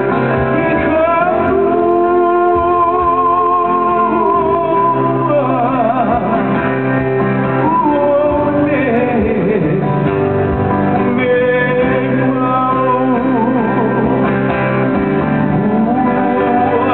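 Live Hawaiian song: two acoustic guitars strumming and picking chords under a man's singing voice, with long held, sliding notes.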